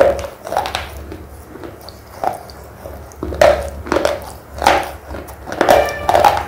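Thick red slate pencil being chewed close to the microphone: irregular dry, crisp crunches every half second to a second, with a run of louder crunches near the end.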